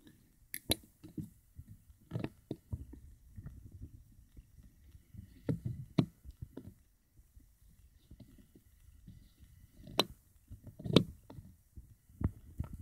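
Irregular light clicks and taps of metal suitcase latch clasps being handled and fingered, over a low rumble of handling noise.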